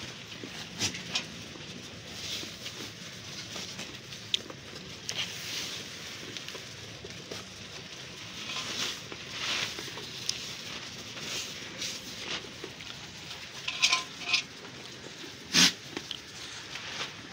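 Goats eating grain feed from a wooden trough lined with plastic sacking: irregular rustling and crunching as their muzzles work through the grain. Near the end come a few sharper knocks, the loudest one shortly before the end.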